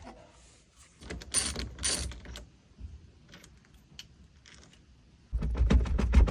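Plastic clicks and rattles as the horn pad is prised off a classic Zhiguli steering wheel and the hub is worked on. Near the end comes about a second of loud knocking and rattling as the wheel is worked loose on its steering shaft.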